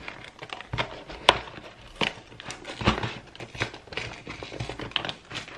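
Small cardboard box being pried open by hand: cardboard scraping and crinkling, with a few sharp snaps, the sharpest about a second in, as the flap tears a little.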